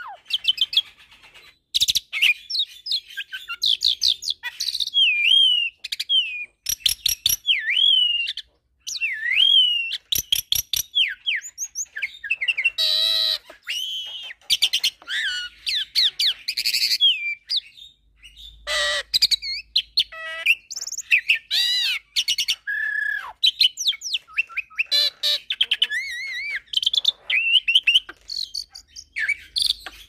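Jalak hybrid, a cross of Nias hill myna and Asian pied starling (jalak suren), singing a fast, varied run of whistles, rising and falling glides and harsh chattering notes, in phrases with short pauses between them.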